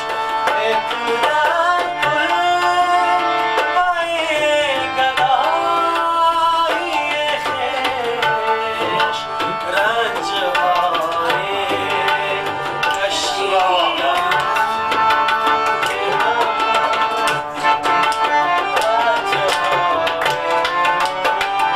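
Tabla playing a fast, dense rhythm of strokes over a harmonium holding steady reed notes.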